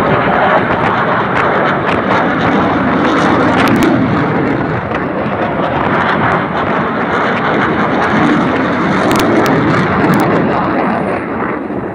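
Saab JAS 39 Gripen fighter jet flying overhead: loud, steady jet engine noise that swells and eases slightly as it passes.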